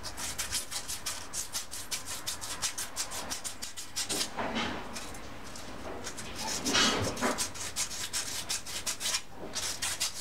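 Sandpaper rubbed by hand over a steel connecting rod cap from a V6 outboard: quick back-and-forth strokes, several a second, with a couple of short pauses. This is the cap being cleaned up; oil soaked into the rod clogs the sandpaper.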